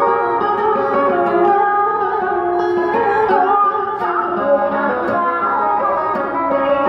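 A woman singing a Vietnamese song into a microphone over plucked-string musical accompaniment.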